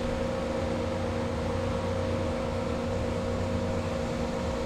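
Steady mechanical hum with a few held tones over a low rumble and hiss.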